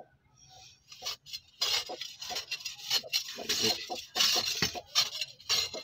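A metal rod scraping and digging into a dry sand-and-soil floor, in repeated irregular scratching strokes that start about a second in.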